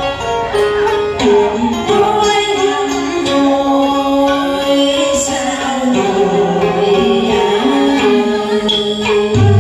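A woman singing a Vietnamese song into a microphone over instrumental accompaniment, holding some notes long.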